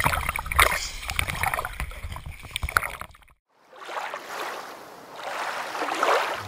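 Lake water splashing and sloshing around a camera held right at the surface, with a swimmer thrashing close by. It cuts off abruptly about three seconds in, and after a brief gap a smooth rush of noise swells and fades.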